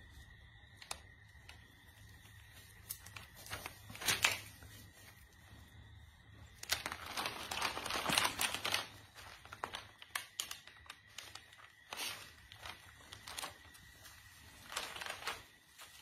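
Crinkling and rustling of something being handled, in bursts: a short one about four seconds in, a longer one from about seven to nine seconds, and a few smaller ones later, with scattered light clicks.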